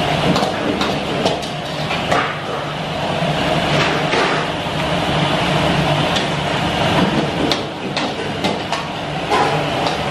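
Steady roar of a commercial kitchen's gas wok burners and extractor hood, with scattered clanks of a metal ladle and utensils against woks and pans.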